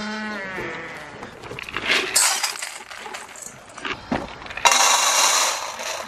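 A goat bleats at the start, one wavering call. Later, feed pellets are poured from a plastic jug into a stainless steel bowl, rattling loudly for about a second.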